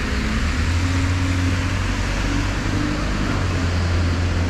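Buses running close by: a steady low engine drone that grows stronger about a second in, with a faint hum of tones above it, over the hiss of road traffic.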